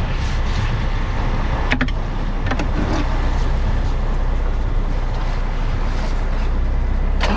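Crab boat's engine and deck machinery running steadily with a low drone, with a few sharp knocks about two seconds in and again near the end.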